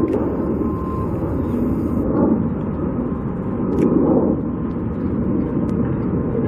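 Steady low rumble of outdoor background noise with a few faint clicks.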